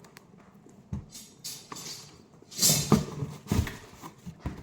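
Handling noise: a soft knock about a second in, then bursts of rustling and light knocks in the second half, as the shoes and their packaging are handled.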